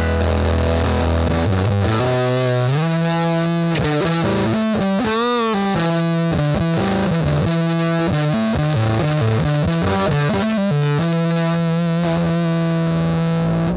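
Electric guitar played through a Headrush pedalboard patch: a dirty amp tone with tri-fuzz distortion, chorus and spring reverb. It plays sustained notes, starting low, with bent, wavering notes in the middle and held notes near the end.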